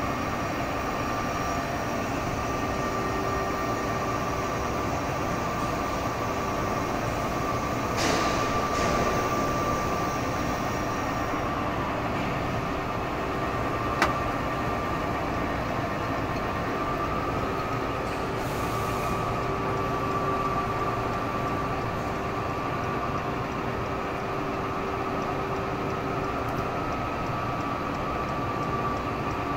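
Engine lathe running with a long metal shaft turning in it: a steady mechanical hum with a faint steady whine. There is a brief hiss about eight seconds in and a single sharp click midway.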